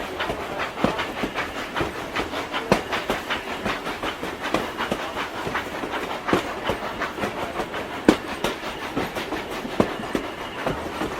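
Steam train running: rapid chugging and the clickety-clack of wheels over rail joints, a fast run of sharp clicks over a steady hiss.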